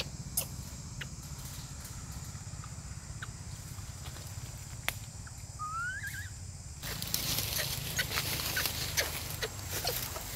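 Quiet outdoor ambience: a steady low rumble with scattered small clicks, and one short rising squeak a little past halfway. From about seven seconds in, the background turns to a louder hiss full of small clicks.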